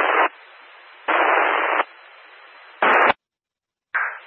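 Radio static on a two-metre amateur repeater channel heard through a scanner: three loud bursts of hiss with quieter hiss between them, cut off by a squelch click about three seconds in.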